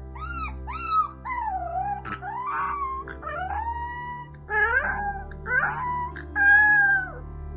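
Two husky puppies howling together: a string of short rising-and-falling yelps, then longer overlapping howls from both pups.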